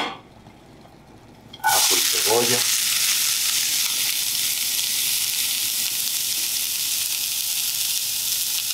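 Chopped onion and garlic tipped from a plate into hot olive oil in a stainless steel skillet. After a quiet second and a half, a loud sizzle starts suddenly and keeps going steadily.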